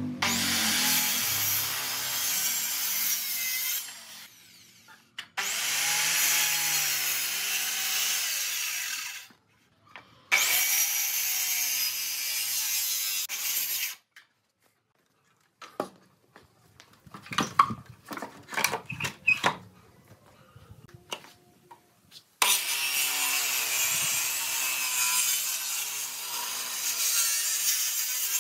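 Handheld circular saw cutting through wooden pallet slats in four separate passes, each a few seconds long, the saw stopping between them. Around the middle, between the second-to-last and last cuts, come a scatter of knocks and clatter.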